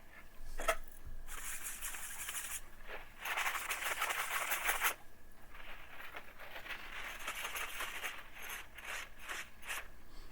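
Base of a Noctua CPU cooler being wiped clean with isopropyl alcohol: a run of scrubbing strokes on the metal contact plate, with a click a moment in.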